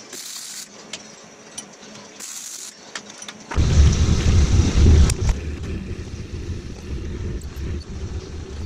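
Two short welding tacks crackling, about half a second each, on a steel part held in a bench vise. Then a drill press runs, a twist bit drilling into a steel block: loudest for the first couple of seconds, then steady.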